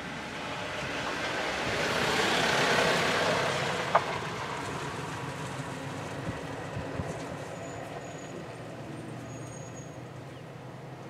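A vehicle engine idling steadily under a broad rushing noise that swells over the first few seconds and then fades, with a sharp click about four seconds in.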